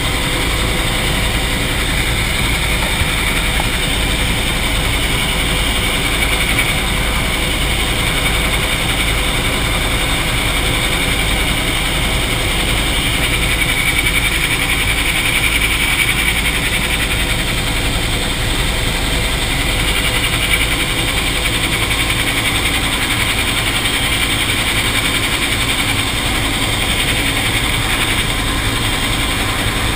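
AH-1 Cobra helicopter in cruise flight heard from inside the cockpit: loud, steady turbine and rotor noise with a faint high whine, unchanging throughout.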